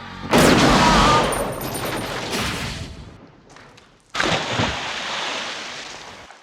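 Two heavy bursts of stylised anime gunfire sound effects, one just after the start and one about four seconds in, each hitting suddenly and trailing off over a couple of seconds.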